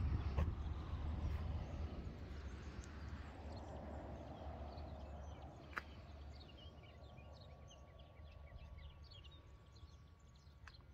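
SEAT Ateca's 1.5 TSI turbocharged four-cylinder petrol engine idling with the bonnet open: a steady low hum that fades gradually. Birds chirp in the background from a few seconds in.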